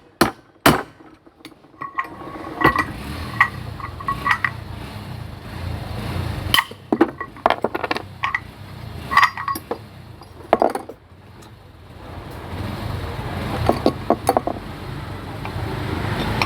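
Irregular sharp metallic taps and clinks, some ringing briefly, from tools working a bearing out of a ceiling fan, over a low background rumble.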